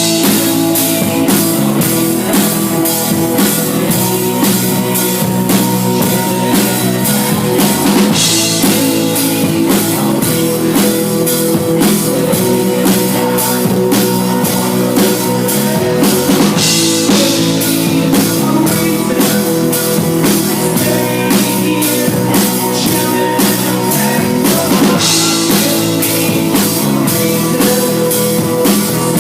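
Rock band playing live: drum kit keeping a steady beat with guitar, cymbal washes coming in about every eight seconds, thin and without deep bass as picked up by a small handheld device.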